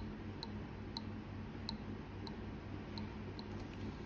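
Light, sharp, irregular clicks about two a second from a hobby knife blade working a tiny metal model turret, over a steady low hum.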